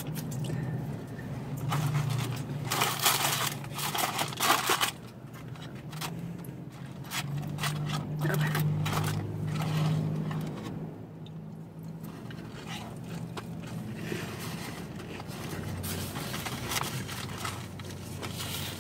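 Close-up chewing and crunching of crispy breaded fried food, with louder crunches about three and four and a half seconds in.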